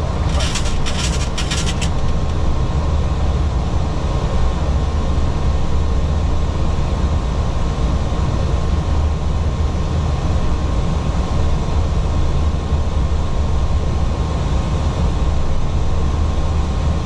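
Steady flight-deck noise of a Boeing 737-800 climbing after takeoff: a deep rumble of airflow and engines with a thin steady tone above it. A few short crackles of hiss in the first two seconds.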